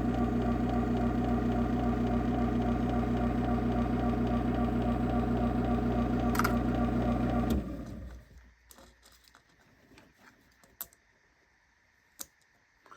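Craftsman chain-drive garage door opener running its opening cycle: a steady motor hum that cuts off suddenly about seven and a half seconds in as it reaches its stop, followed by a few faint clicks.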